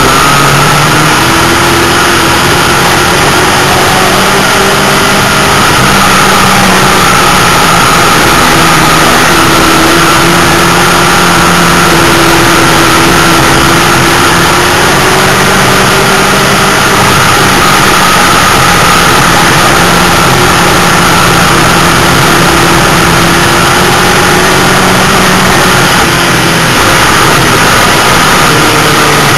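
A dirt-track race car's engine heard from inside its cockpit, loud and continuous, its pitch rising and falling in slow swings as the throttle comes off and back on through the turns.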